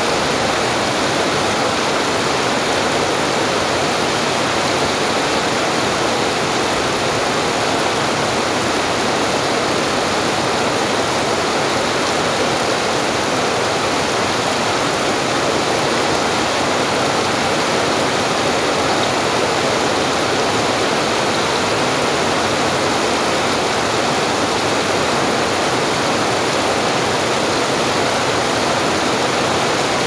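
Steady rain falling on gravel ground and plants: an even, unbroken hiss that holds at the same level throughout.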